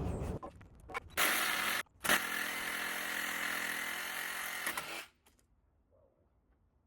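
Angle grinder running in a short burst of under a second, then steadily for about three seconds before it stops.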